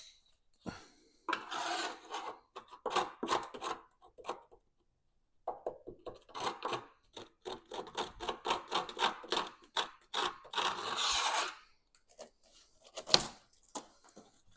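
Hands working on a classic Mini's door: irregular scraping and rubbing with short clicks and knocks, in two spells, then a single sharp knock near the end.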